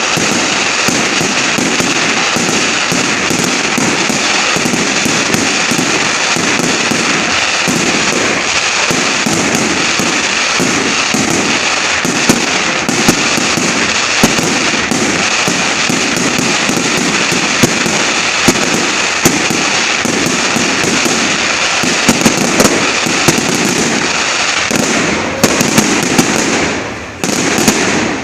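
Fireworks display going off: a dense, continuous barrage of rapid bangs and crackling, with a few louder single reports standing out, and a short lull near the end.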